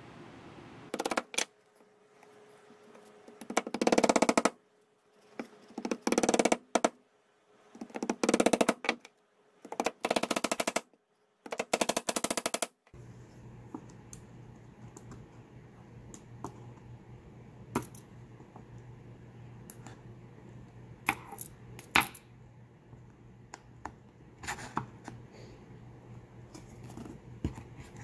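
Felo tack claw prying thumbtacks and small tacks out of a wooden board: scattered sharp clicks and light taps as each tack pops free, over a faint steady hum. Before that, six louder bursts of rapid rasping clicks, each about a second long, come from handling the tool.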